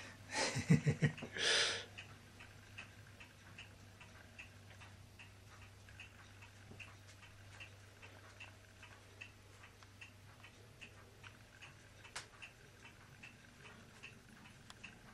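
A clock ticking steadily, about two to three ticks a second, over a low steady hum. A brief louder muffled noise comes in the first two seconds, and a single sharper click comes near the end.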